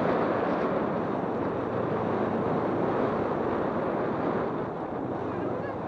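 Steady rush of wind over the microphone on a moving motorbike, with the bike's engine and road noise underneath.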